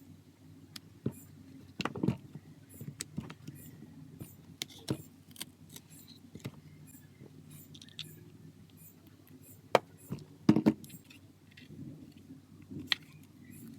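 Irregular small clicks and taps of hand tools and plastic phone parts as a Samsung A05 smartphone is being taken apart, with the sharpest clicks about two seconds in and again near ten seconds, over a low steady background hum.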